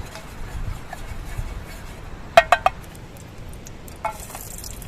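Cookware and utensils clinking: three quick ringing clinks about halfway through, then one more near the end.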